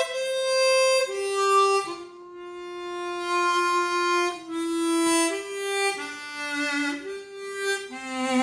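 Easttop EAP Performer 16-hole chromatic harmonica, airtightened and fitted with its stock covers, played as a sound test: a slow melody of held notes, mostly stepping downward in pitch, each about a second long.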